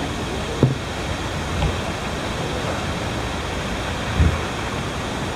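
Steady rushing of river water running over shallow rocks, with a few dull knocks about half a second, a second and a half, and four seconds in.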